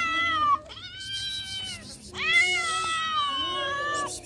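A domestic cat meowing loudly in long, drawn-out wails, about three calls, the last the longest and loudest. The uploader says the cat has an injured, paralyzed leg and is crying for help.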